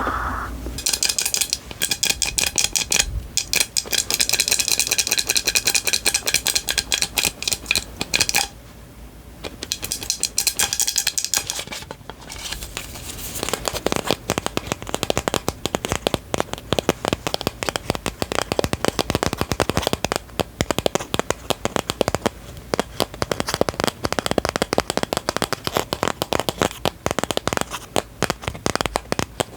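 Dense, rapid crackling and clicking from an object handled close to the microphone, stopping briefly about eight seconds in and resuming fuller and lower from about thirteen seconds on.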